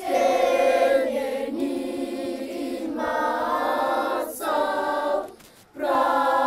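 A choir singing in long held phrases, breaking off briefly about five and a half seconds in and then starting again.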